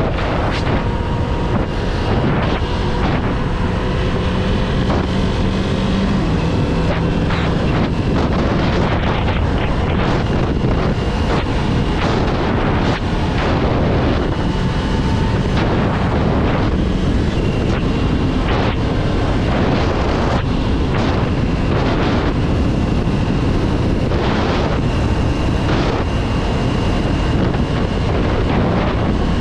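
Kawasaki 400 motorcycle at road speed: its engine running steadily under a loud rush of wind on the camera microphone.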